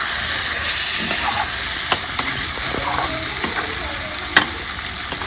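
Chicken curry pieces sizzling steadily in hot oil in a pan while being stirred, with a few sharp knocks of the spatula against the pan. The meat is being fried (bhuna) until browned, the stage before water goes in.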